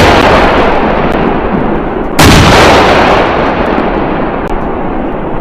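2S3 Akatsiya 152 mm self-propelled howitzer fire. A shot's rolling echo fades away, then a second shot goes off about two seconds in, its boom echoing away slowly.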